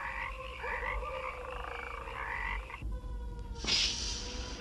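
Steady electronic sci-fi tones, warbling and pulsing. About three and a half seconds in they give way to a loud burst of pneumatic hiss as a sliding spaceship door opens.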